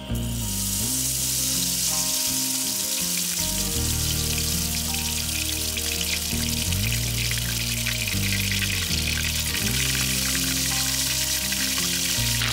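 Hot oil deep-frying food in a pan: a steady, dense crackling sizzle that starts abruptly, over background music.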